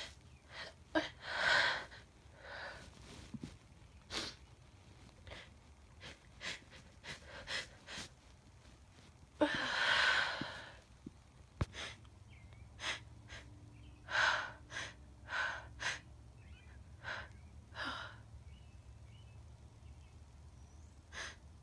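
A woman sneezing several times, with short, sharp breaths between the sneezes. The biggest sneeze comes about ten seconds in.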